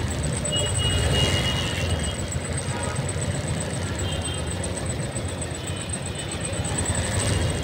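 Floodwater sloshing and splashing around cycle rickshaw wheels wading through a flooded street, over a steady low rumble. Brief high tones come about a second in and again about four seconds in.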